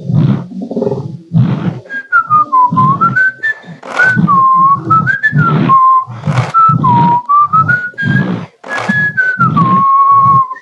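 A person whistling a tune that glides up and down, starting about two seconds in, over a steady chugging rhythm of loud, noisy puffs about every 0.7 seconds, like recreated steamboat puffing.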